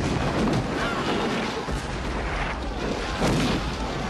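Battle sound effects of cannon booms and musket fire in a dense, continuous din, with the loudest blast about three seconds in.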